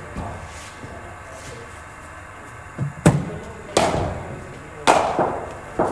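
Cricket ball fired from a bowling machine and struck with a bat: a run of four sharp knocks about a second apart from about three seconds in, each echoing in the indoor hall.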